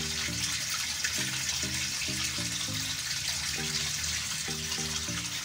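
Water running steadily, a constant hiss, with background music playing short low notes in a repeating pattern underneath.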